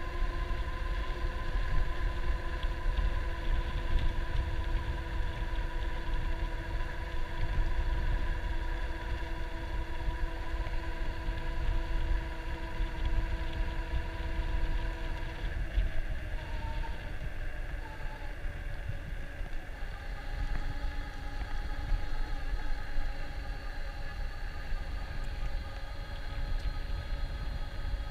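Electric bike riding along at speed: wind buffeting the microphone as a steady low rumble, over a steady whine from the e-bike's motor that sags slightly in pitch, breaks off about sixteen seconds in and comes back at a different pitch a few seconds later.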